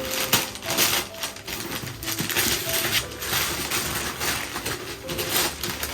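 Wrapping paper crinkling and tearing in quick, irregular rips and rustles as a gift is unwrapped.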